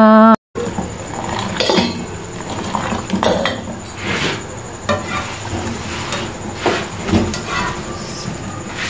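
Metal kitchen tongs clinking and knocking against a tawa griddle and the gas stove at irregular intervals as a paratha is picked up and lifted off the griddle.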